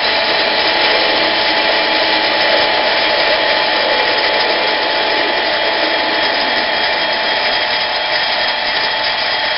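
Harbor Freight 7x10 mini metal lathe running steadily at about 600 RPM, its motor and gears giving a steady whine with several tones, while the tool takes a facing cut across the end of the spinning shaft.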